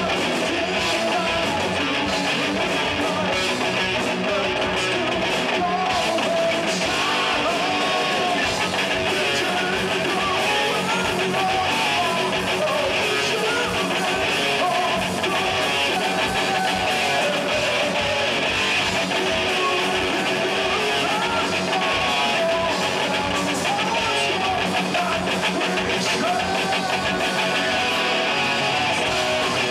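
Live rock band playing: electric guitars, bass guitar and drum kit, at a steady level throughout.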